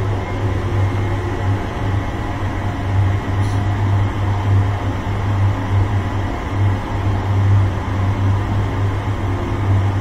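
Two-burner industrial gas furnace with North American Tempest burners running at low fire: a steady low rumble of the burner flames and combustion air.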